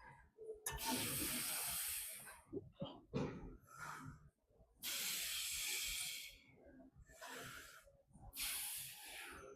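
A man's forceful hissing exhalations through the mouth during shoulder press reps: three long exhales a few seconds apart, with quieter breathing between them.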